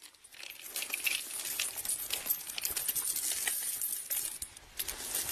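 A heap of metal coins clinking and jingling as a gloved hand rakes through them, a rapid scatter of small clinks.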